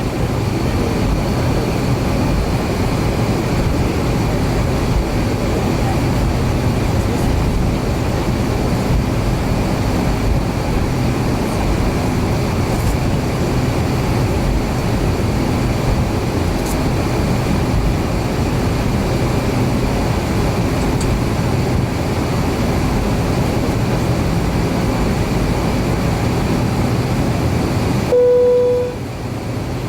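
Cabin noise of an Avro RJ100 with its four turbofan engines running at power, a loud, steady rumble with faint steady whines. About two seconds before the end the engine noise drops away abruptly and a short, loud beep sounds.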